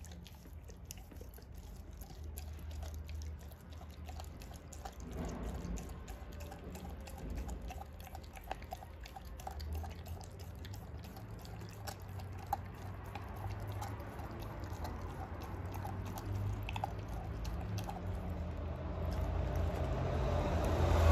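American bulldog licking and chewing raw poultry: a run of small wet mouth clicks and smacks, growing louder near the end.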